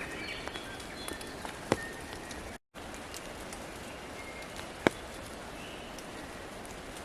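Steady hiss of light rain in forest, with a few short faint bird chirps and two sharp ticks, about two seconds and five seconds in. The sound cuts out for a moment about two and a half seconds in.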